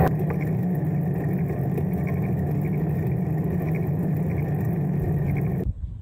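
Steady rolling rumble of bicycle tyres on asphalt, mixed with wind buffeting a camera mounted on the moving bike. About a second before the end it cuts off abruptly to a quieter, gusty wind noise on the microphone.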